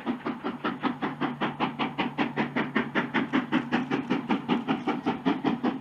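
Steam locomotive running at speed, its exhaust chuffing in a fast, even rhythm of about seven beats a second.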